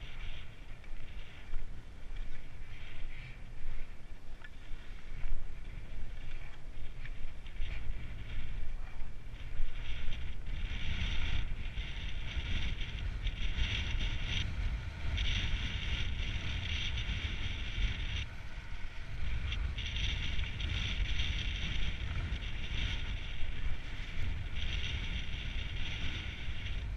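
Wind buffeting a GoPro action camera's microphone: a steady low rumble, with a hiss that swells and fades every second or two.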